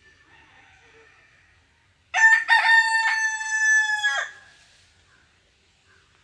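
Rooster crowing once: a loud cock-a-doodle-doo of about two seconds, broken a few times near the start, then a long held note that drops at the end.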